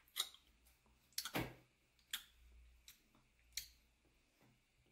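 A few soft, scattered clicks and ticks, five or six spread irregularly, the clearest about a second in.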